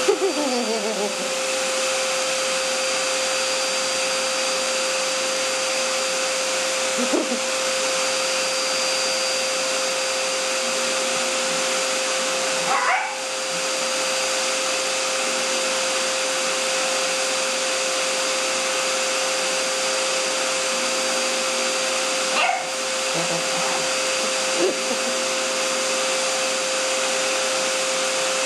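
Vacuum cleaner motor running steadily with a high whine. A shih tzu gives a few short yelps or whines over it, spaced several seconds apart.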